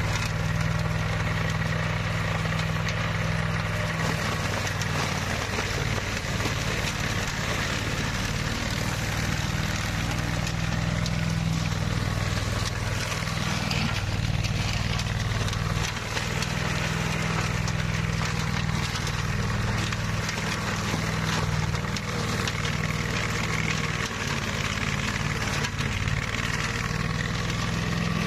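Flail mower running steadily under load: an engine drone with the steady noise of the spinning flail rotor, unbroken throughout.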